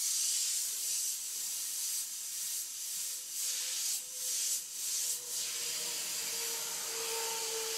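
Iwata Eclipse airbrush spraying paint at about 80 PSI: a steady high hiss of air that swells and eases several times as the trigger is worked through short strokes, with a faint steady hum underneath.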